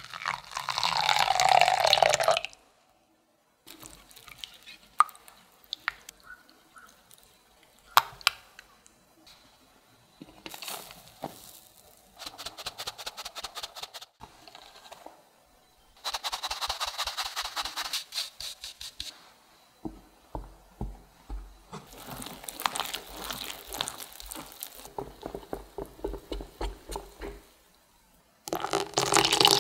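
Warm milk poured in a stream into beaten eggs in a glass bowl, then mixing, scattered clicks and taps, and cake flour sifted through a fine-mesh sieve into the bowl. A run of regular strokes follows as the batter is mixed, and near the end the rest of the milk is poured into the batter.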